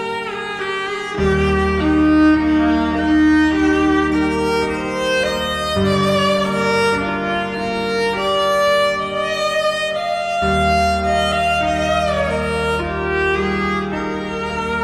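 Slow instrumental background music: a sustained melody over held low notes, with the harmony changing about every four to five seconds.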